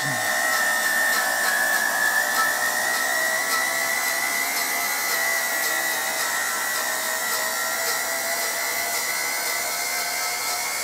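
Model steam turbine locomotive running on boiler steam at about 80 psi, the pressure it needs to go: a steady high whine from the high-speed turbine drive over a hiss of steam, the whine's pitch creeping slowly upward.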